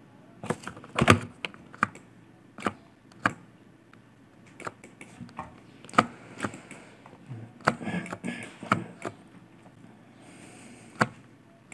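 Scattered, irregular sharp clicks of a computer keyboard and mouse being pressed.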